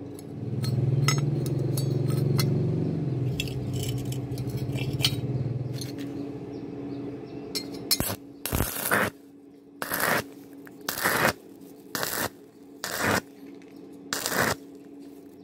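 Stick-welding arc on a thin 1 mm square tube, struck about six times in short spells of under a second each over the second half, burning a hole through the thin wall. A steady low hum fills the first six seconds.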